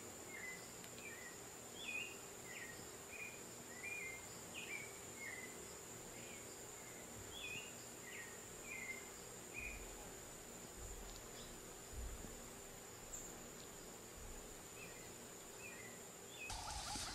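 Faint, short high chirps with quick pitch slides, about one or two a second for several seconds, then a few more near the end, over a steady faint hiss.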